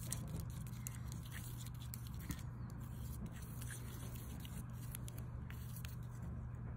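Faint, irregular clicks and scrapes of a thin brush handle stirring thick paint in a small glass bowl, over a steady low hum.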